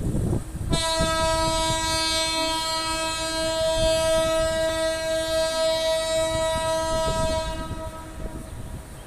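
Locomotive horn sounding one long, steady blast that starts about a second in, holds for some seven seconds and then fades out, over a low rumble.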